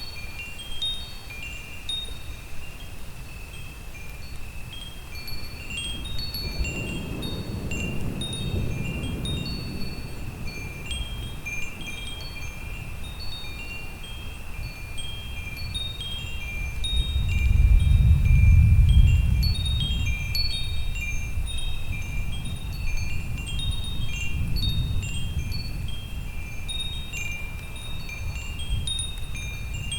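Wind chimes ringing throughout in scattered high, clear tones, over low rolls of thunder. The longest and loudest roll swells a little past halfway, with weaker rolls before and after it.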